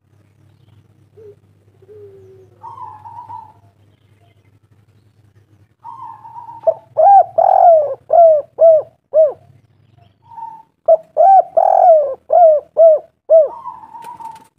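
Spotted dove (tekukur) cooing: a few soft coos, then two loud runs of about six quick rising-and-falling coo notes each, a call used as a lure to set other doves calling.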